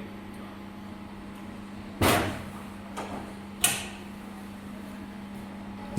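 Two clunks about a second and a half apart as controls on a fiber laser cleaning machine are switched off, over a steady low electrical hum.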